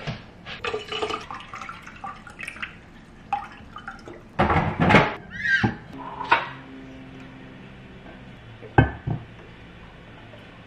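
Kitchen handling sounds around an insulated tumbler and a supplement bottle: small knocks and clicks, then a loud rush of water into the tumbler about four and a half seconds in, and a single sharp click near nine seconds.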